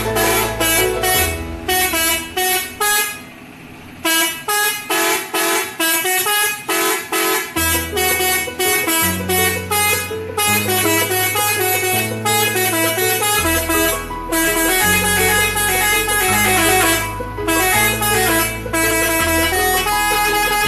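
Telolet horn, a set of multi-tone air-horn trumpets, playing a melody in quick short toots about three a second over a lower held note that steps to a new pitch every second or two. It briefly drops out about three seconds in.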